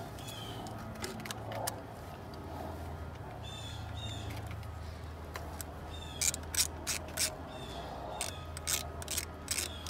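Hand socket ratchet clicking rapidly, about three clicks a second, from about six seconds in as a bolt is run in, with short bird chirps and a low steady hum in the background.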